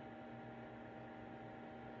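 Mini portable evaporative air cooler's fan running with a faint, steady hum and air hiss.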